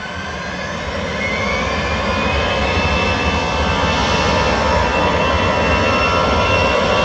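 Airbus A320's CFM56 turbofan engines spooling up: a whine that rises in pitch over the first two or three seconds and then holds steady over a low jet rumble, growing louder.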